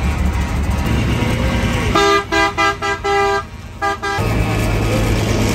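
A vehicle horn honks in a quick run of about seven short toots, starting about two seconds in and lasting about two seconds, over the low, steady engine rumble of racing trucks rolling slowly past.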